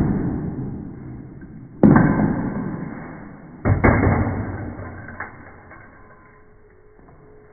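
Toy Thor hammer dropped onto a table: loud knocks about two seconds apart, each fading slowly over a second or more, then a faint knock a little after halfway.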